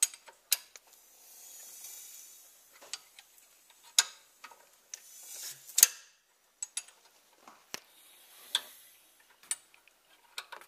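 Sharp metallic clicks at irregular intervals, with softer rasping in between, from a socket wrench turning a Toyota Yaris VVT-i engine's crankshaft by hand toward top dead centre, its timing chain and sprockets exposed.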